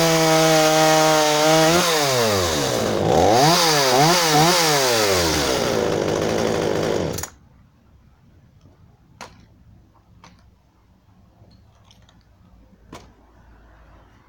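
GTM Professional GTC36 36 cc two-stroke chainsaw engine running steadily, then revved up and down several times and held high before cutting off suddenly about seven seconds in. A few faint clicks follow.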